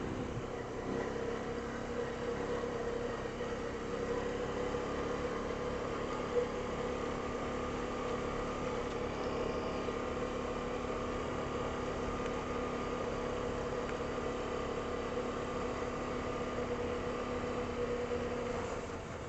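Single-cylinder Honda ATV engine running at a steady, even note, with one brief knock about six seconds in; it drops in level just before the end.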